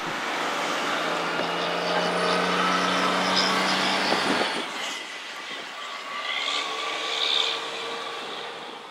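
Heavy truck sound: engine and rolling noise with a steady low hum for the first four seconds or so, then easing off to a lighter, quieter rush before fading out.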